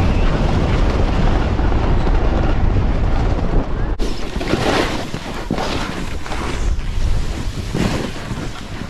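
Wind rumbling on a moving snowboarder's microphone as the board slides over packed, groomed snow. About four seconds in the sound changes abruptly to a snowboard riding through loose powder, with several separate hissing swishes as it turns.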